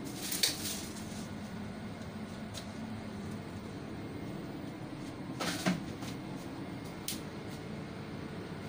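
Restaurant kitchen background: a steady low hum with a few short knocks or clatters, one near the start, the loudest about five and a half seconds in, and a sharp click about seven seconds in.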